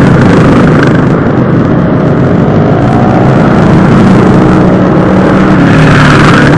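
A column of motorcycles riding past one after another close by, their engines running loud and steady.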